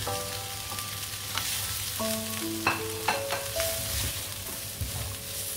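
Sliced winged beans sizzling as they hit the hot oil and chilli-anchovy sambal in a nonstick wok. A wooden spatula stirs them, clacking against the pan a few times.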